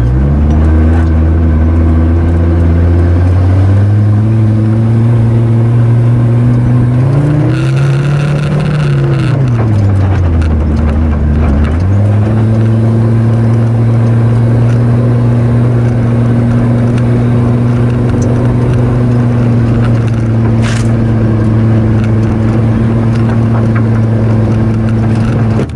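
Off-road 4x4's engine pulling the vehicle along a dirt track, loud and steady. Its pitch steps up a few seconds in, rises and then falls away near the middle, and comes back up to hold steady with the throttle.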